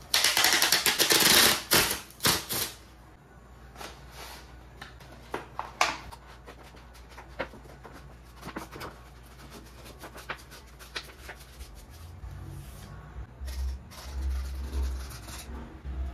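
Corrugated cardboard being handled and pressed together by hand: a loud scraping rustle in the first two seconds or so, then scattered light clicks and taps.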